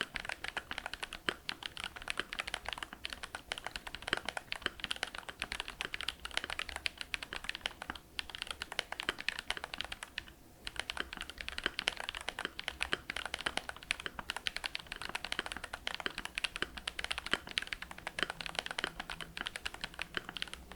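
Fast, continuous typing on a Glorious GMMK Pro mechanical keyboard with lubed Glorious Panda tactile switches in an aluminium plate and Akko keycaps: a dense run of keystroke clacks with a brief pause about ten seconds in.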